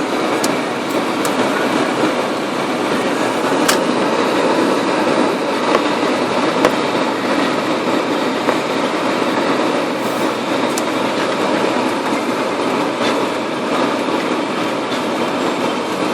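1998 Dodge Durango driving on a snow-covered road with four-wheel drive engaged: steady tyre and road noise, with a few sharp ticks.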